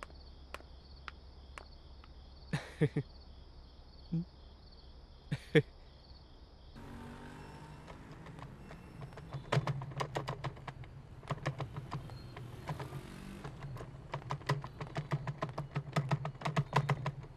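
Night insects chirping in a steady pulsing trill, with a few sharp clicks. About seven seconds in the insects stop and a street broom starts sweeping pavement in quick, scratchy strokes, several a second.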